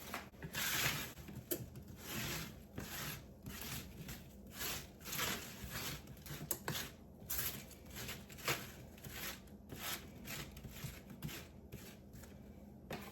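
Garlic seasoning being shaken out of its container onto the vegetables, in repeated short scratchy strokes, about two a second.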